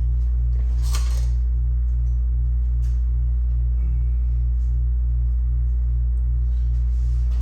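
Loud, steady low electrical hum with a faintly pulsing buzz above it, under faint knocks and rustling from parts being handled; the loudest of these comes about a second in.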